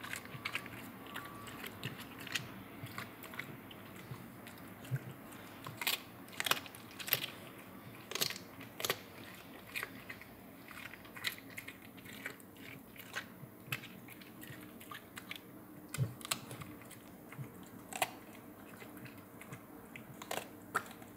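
A dog crunching and chewing on a half of Korean melon (chamoe), with irregular crisp bites and crunches a few times a second.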